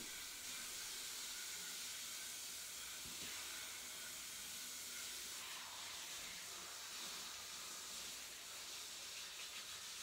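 A handheld shower head gives a steady hiss of spraying water, landing on the tiled floor and then on a cat's wet fur as it is rinsed.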